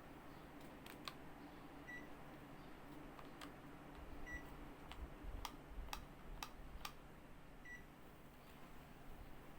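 Panasonic mini split air conditioner beeping three times, short high beeps a few seconds apart, the acknowledgement beep of the unit taking remote-control commands. There are several sharp clicks, most of them in the second half, over a steady low hum.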